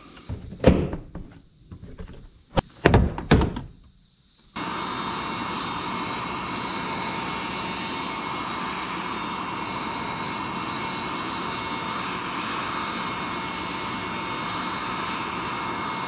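A few knocks and clunks of plastic trim being handled, then an electric heat gun switches on about four seconds in and runs steadily, a blowing whoosh with a faint motor whine, heating a dented plastic bumper cover so it can be pushed out.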